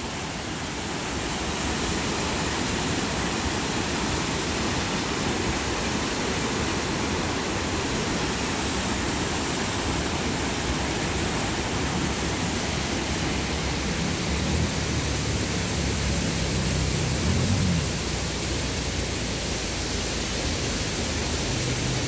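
Steady rushing of a waterfall, its water plunging into a pool below. A low rumble swells briefly about two-thirds of the way through.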